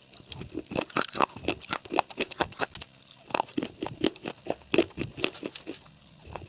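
Crunchy chewing: something crisp being bitten and chewed, an irregular run of sharp crunches several times a second, with a brief pause near the end.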